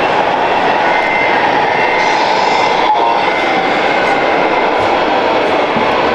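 1:14 scale RC MAN semi-truck driving slowly past, a steady engine-like running noise with a faint high whine.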